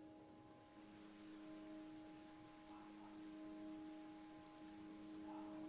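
Faint ambient background music: a soft, sustained drone of steady held tones, like a singing-bowl pad.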